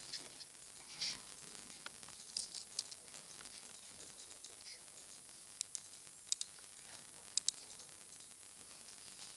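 Computer mouse and keyboard clicks over a steady hiss: scattered sharp clicks, several in quick pairs like a mouse button pressed and released, with a duller key-like knock about a second in.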